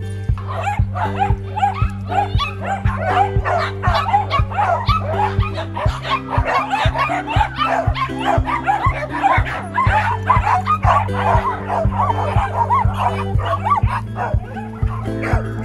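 A pack of small dogs barking and yipping excitedly, many at once in a continuous overlapping chorus, over background music with a steady beat.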